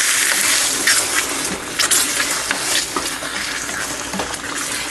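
Tomato sauce sizzling with fried onions in a hot frying pan as it is stirred in: a steady hiss that slowly dies down, with scattered light clicks of the spoon against the pan.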